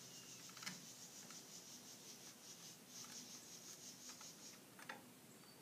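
Faint, high-pitched rasping drone that stops briefly near the end, with two light clicks, one about a second in and one near the end, from hardware being handled on a truck-bed kayak rack.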